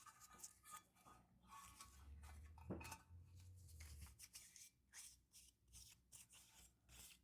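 Faint clicks and light scraping of small metal carburetor parts being handled and set down on a workbench.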